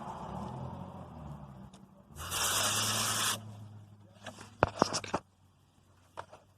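Air hissing from a car tire valve for about a second as the tire inflator's nozzle is fitted onto it, over a steady low hum, followed by several sharp clicks of the nozzle and unit being handled.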